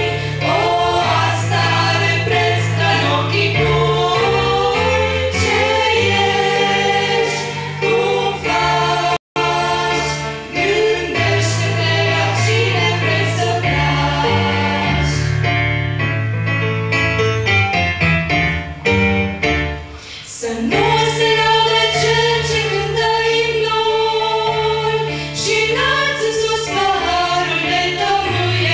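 Group of young women singing a worship song in harmony into microphones, over an accompaniment holding steady bass notes. The sound cuts out for an instant about nine seconds in.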